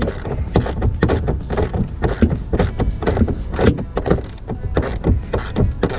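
Hand ratchet working bolts in by hand: a dense run of irregular clicks and knocks.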